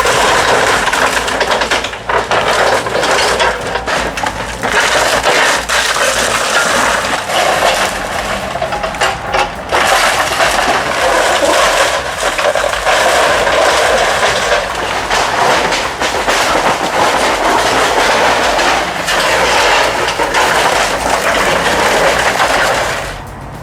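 Compact Kubota excavator demolishing a wooden shack: continuous crunching and cracking of splintering boards and falling debris, over the low steady run of the machine's engine. The crashing dies away just before the end.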